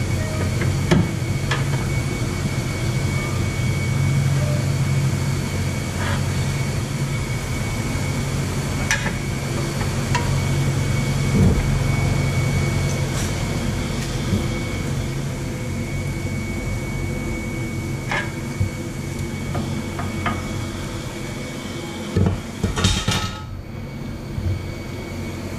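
Scattered sharp metal knocks and clanks from hand tools (pry bar and hammer work) against a car's front suspension as the lower ball joint is worked loose from the steering knuckle, with a few louder knocks near the end. Underneath runs a steady low shop hum with a faint high whine.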